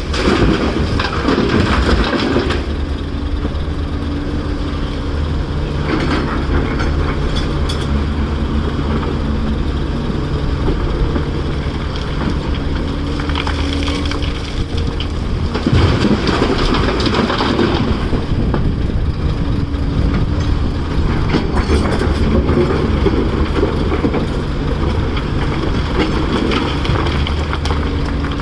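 Caterpillar 336 excavator's diesel engine running steadily under load, with rock and dirt clattering and scraping several times as it digs and loads.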